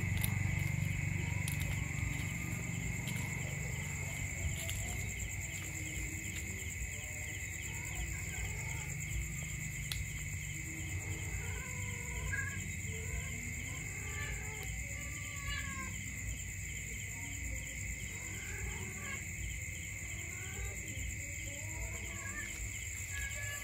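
Night insect chorus: a steady high cricket trill with a fast, even pulsing chirp above it. From about eight seconds in come scattered short, soft calls from a nearby animal.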